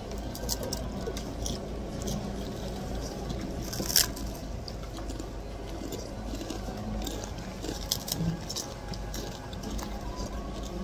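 Crunching bites into a piece of chicharon (deep-fried pork rind), then chewing it, with many short crackles and one sharp crunch about four seconds in.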